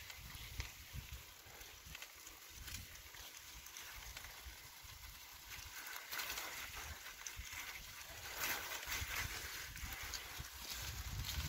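Bicycle tyres rolling through slush and wet snow, with an uneven crunching over a low rumble, growing a little louder in the second half.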